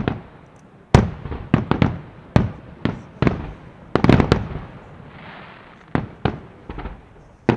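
Aerial firework shells bursting in quick succession, about a dozen sharp bangs with echoing tails, with a short hiss a little after five seconds in and a few more bangs near the end.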